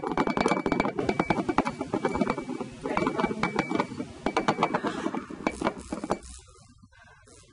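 Rapid, irregular clinking and rattling, with a faint high squeal that comes and goes, stopping suddenly about six seconds in.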